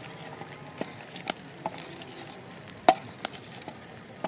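About seven sharp clicks and knocks at irregular intervals over a low steady hiss; the loudest comes about three seconds in.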